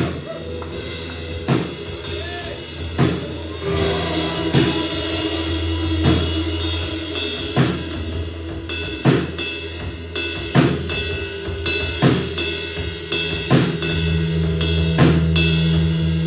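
Live drum kit and guitar playing an instrumental passage: the drums keep a steady beat with heavy accents about every second and a half over sustained guitar chords, with no vocals.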